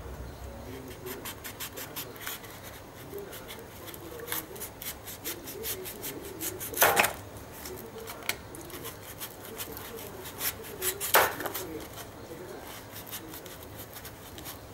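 Knife slicing and scraping through the fibrous husk of a tender palmyra palm fruit: a run of short, crisp scrapes and clicks, with two louder cuts about halfway and three-quarters of the way through.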